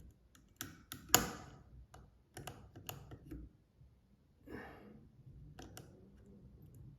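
A lock pick and tension tool working the levers inside an old Chubb lever padlock: scattered small metallic clicks and scrapes, the loudest about a second in.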